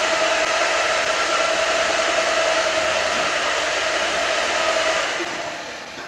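Motor-driven discharge auger of a pig-feed cart running steadily, a whirring hum with a high whine, as it conveys feed out through its arm and hose into the trough. About five seconds in it winds down and stops as the feeding run ends.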